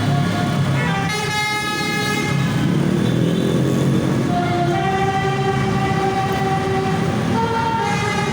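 Bus basuri horn, a multi-trumpet musical 'telolet' air horn, playing a tune of held chords whose pitch steps to a new note every second or so, over the low rumble of the bus.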